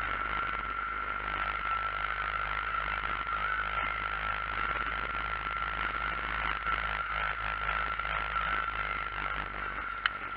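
Bizon combine harvester heard from inside its cab while cutting grain: the steady drone of the engine and threshing machinery, with a constant high whine over it. A single sharp click near the end.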